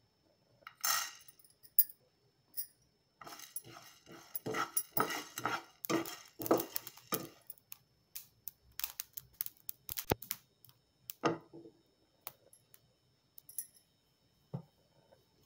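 Black peppercorns tipped from a steel spoon into a nonstick frying pan with a brief rattle, then a steel spoon stirring and scraping whole spices dry-roasting in the pan, about two strokes a second, followed by scattered clicks and clinks. Near the end a single dull knock as a steel mixer-grinder jar is set down on a wooden board.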